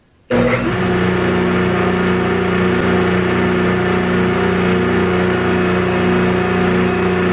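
Grizzly G0858 8-inch jointer with a helical cutterhead switched on: motor and cutterhead come up to speed almost at once, about a third of a second in, and run idle with a steady hum, no wood being cut.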